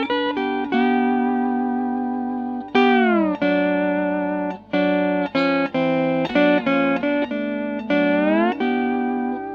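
Early Fender Pro steel guitar with Nick Fryer pickups, played through a Fender Bassman valve amp: ringing, sustained chords, with the bar sliding the chord down in pitch about three seconds in and sliding it up again near the end.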